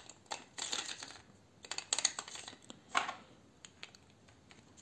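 Light, irregular clicks and taps of hard plastic and small metal parts as the battery grip of a cheap 2.4 GHz RC transmitter is worked on by hand, in a few small clusters.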